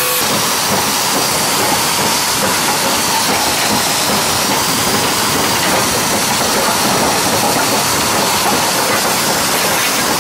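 Steam locomotive on the move, heard down by its driving wheels: a loud, steady hiss of steam mixed with the running noise of the wheels on the rails.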